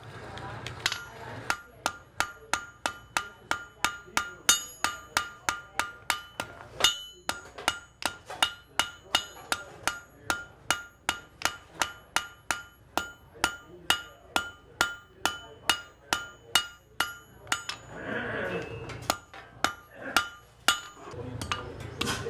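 Blacksmith's hand hammer striking hot iron on an anvil in a steady rhythm of about two blows a second, each blow ringing. The hammering breaks off briefly near the end, then resumes with a few more blows.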